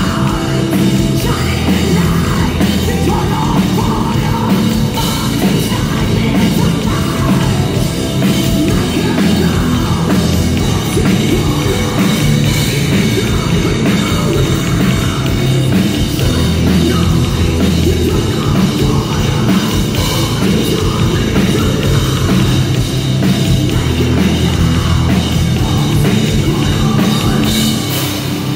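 Heavy metal band playing live, loud and without a break: bass guitar, electric guitar and a drum kit.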